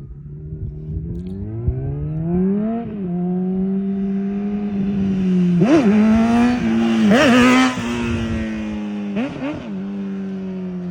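Honda CBR600RR inline-four with a Yoshimura exhaust running under load: its note climbs for about three seconds, drops back, then holds steady with several quick throttle blips, the loudest about halfway through.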